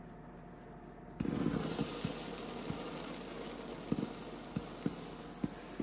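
Wood stove fire crackling, with a hiss and sharp pops, starting suddenly about a second in.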